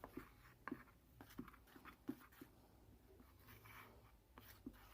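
Faint scraping and soft, irregular ticks of stirring a thickening slime mixture of glue and toothpaste.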